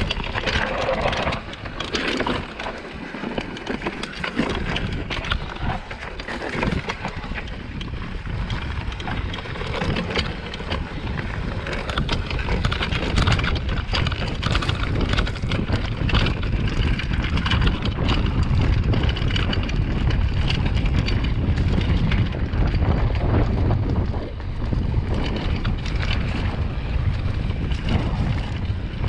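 Mountain bike descending a rocky downhill trail: wind buffeting the camera microphone, tyres crunching over dirt and rock, and the bike rattling with many sharp knocks over the bumps.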